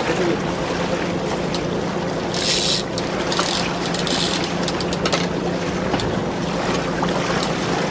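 Boat engine running with a steady low hum, under wind and water noise. There are three short hissing bursts in the middle and a few faint clicks.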